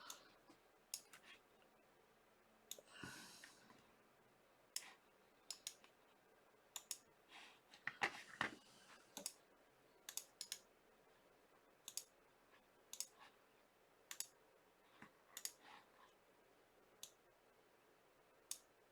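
Faint, irregular clicks of a computer mouse and keyboard being worked, spaced a second or so apart, with a couple of soft rustles.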